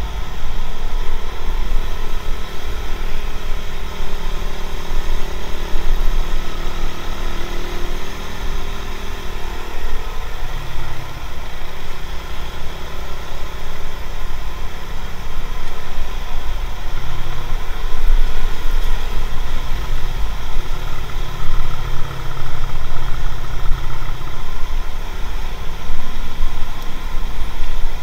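Motorcycle engine running while riding in traffic, its note rising and falling with the throttle, heard through an action camera's built-in microphone.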